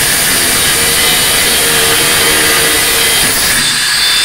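Angle grinder with a cut-off disc cutting through steel chassis tubing: a loud, steady grinding screech with the motor's whine under it. About three and a half seconds in, the sound changes as the disc comes away from the metal.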